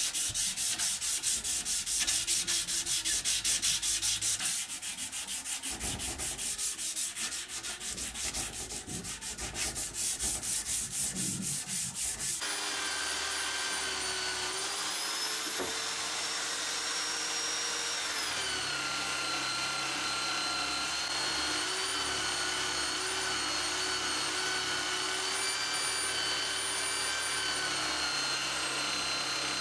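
Abrasive paper rubbed by hand in quick back-and-forth strokes along a steel cleaver blade. About twelve seconds in, this gives way to a vise-mounted angle grinder spinning a buffing wheel: a steady whine whose pitch shifts as polishing compound and the blade are pressed against the wheel.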